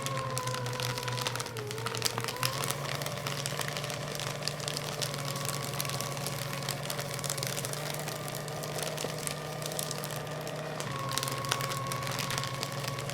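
Electric paper shredder running continuously: a steady motor hum and whine, with paper crackling as it is cut. The whine dips briefly in pitch about two seconds in, then settles again.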